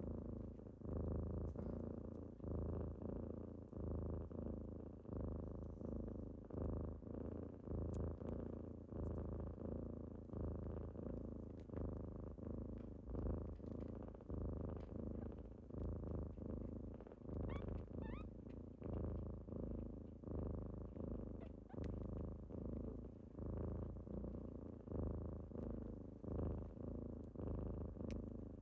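Kittens purring close up: a steady low rumble that swells and eases with each breath, about once every second and a bit.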